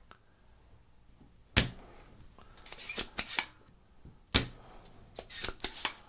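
Vacuum desoldering tool (solder sucker) firing twice, about three seconds apart, each time with a sharp snap, then a quick cluster of scratchy clicks and air noise about a second later. It is pulling molten solder out of capacitor holes in a circuit board.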